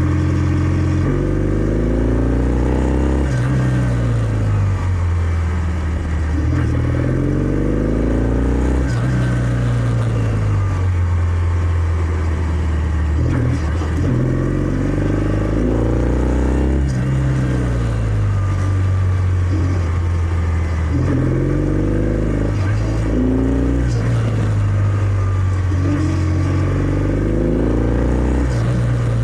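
Kawasaki W650's air-cooled parallel-twin engine running through its stock exhaust while riding. It pulls through the gears several times, the revs climbing and then dropping at each shift, with steady cruising between.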